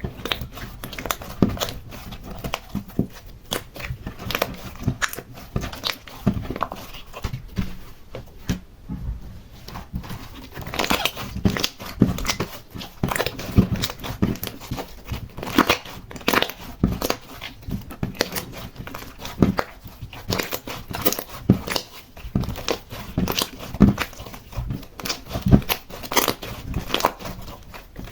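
Slime being kneaded and mixed by hand, with decorations worked into it: a rapid, irregular run of clicks, pops and crackles that goes on without a break.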